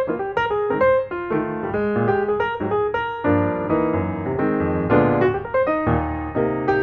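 Background piano music, a light melody of quick notes over held chords.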